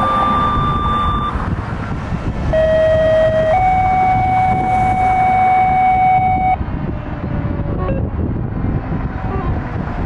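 Fire truck with a steady low engine and road rumble. A steady high warning tone cuts off about a second in. After a short gap a long steady horn-like tone sounds, steps up in pitch about a second after it starts, and stops a little past the middle.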